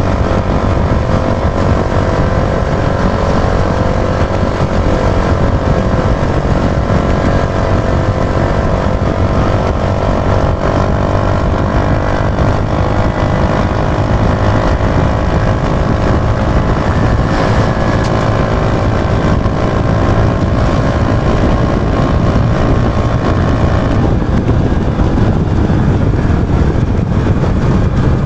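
Yamaha YB125Z DX's 125 cc single-cylinder four-stroke engine running steadily under load while riding, mixed with heavy wind rush on the microphone. The engine note drops near the end.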